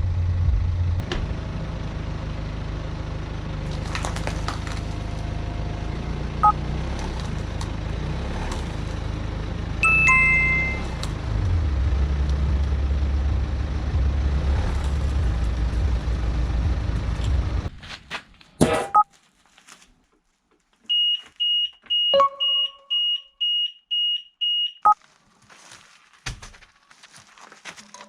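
Music with a heavy bass line, with a two-note chime about ten seconds in. It cuts off at about eighteen seconds, leaving a few clicks and then a quick row of about nine short, high beeps.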